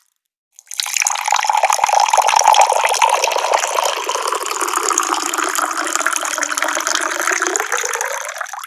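Water pouring steadily from a tap. It starts about half a second in and stops shortly before the end.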